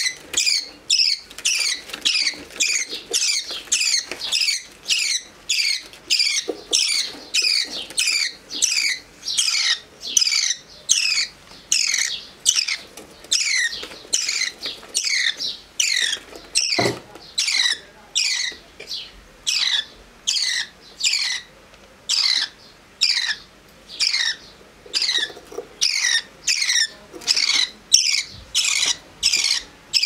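Budgerigar chick begging: a steady run of short, high calls, each falling in pitch, about one and a half a second, repeated without a break. A single dull knock sounds a little past the middle.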